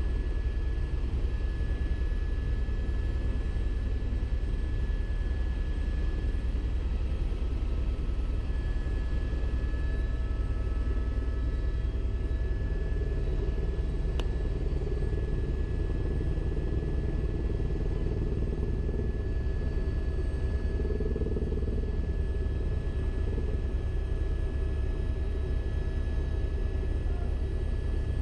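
Helicopter in flight heard from inside the cabin: a steady low rumble with faint steady whining tones above it.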